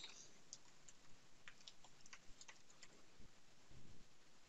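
Faint, irregular keystrokes on a computer keyboard as a file name is typed.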